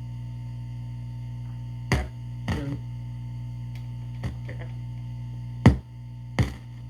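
Steady mains hum from the vintage General Electric radio-phonograph's speaker, broken by about five sharp pops or crackles. The owner puts the hum down to a wire that is not grounded and the crackling to a bad contact somewhere.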